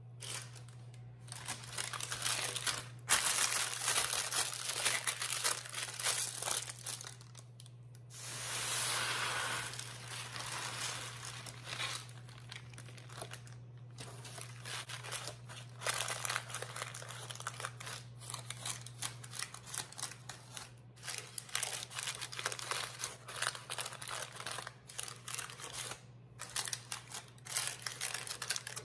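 Parchment paper crinkling and rustling as it is handled in a tart shell, with dry rice rustling against the paper as it fills the shell and is pressed down by hand. A steady low hum runs underneath.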